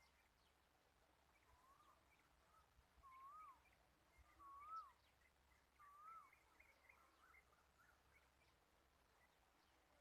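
Faint birdsong: a bird repeating a short whistled note that rises and falls, four times about a second and a half apart, over scattered higher chirping.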